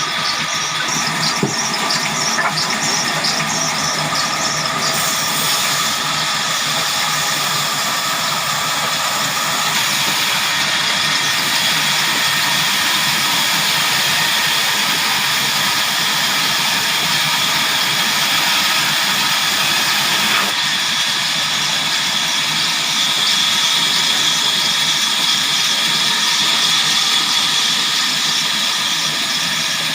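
Sawmill saw cutting through a large log: a loud, steady high whine over a grinding hiss, with a small shift in tone about twenty seconds in.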